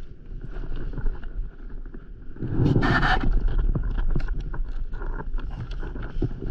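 Wind rumbling on the microphone while water laps against an inflatable paddleboard, with small knocks and rustles from gear being handled; a louder burst of noise about three seconds in.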